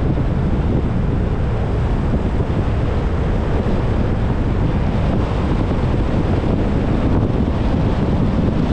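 Steady wind rush and low rumble on the microphone of a camera on a moving car.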